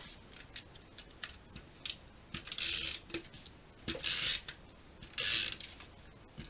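Light clicks and taps of cardstock being handled, with three short rasping strokes, about half a second each, of an adhesive tape runner run across the paper.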